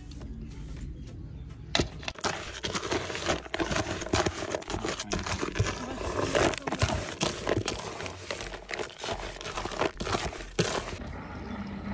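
A carp bait mix of pellets, sweetcorn and small seeds being stirred in a plastic bucket: a dense rattling and crunching of the grains that starts about two seconds in and stops about a second before the end.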